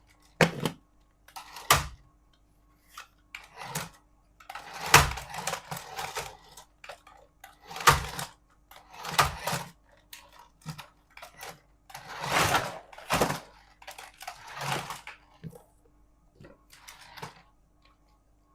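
Packaging of a toy remote control car being handled and opened: a string of knocks, clicks and rustling scrapes, some of the rustles lasting about a second.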